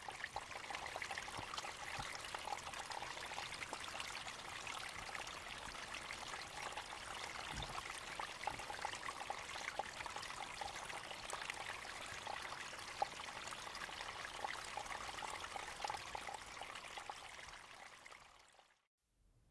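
Meltwater trickling and running over glacier ice, a steady crackling trickle that fades out near the end.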